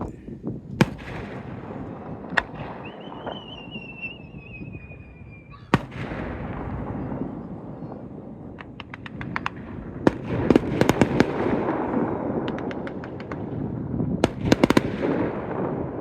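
Aerial fireworks going off: single sharp bangs with a rolling rumble between them, and one whistle held for about three seconds that ends in a sharp bang. Several bursts of rapid crackling follow, the loudest near the end.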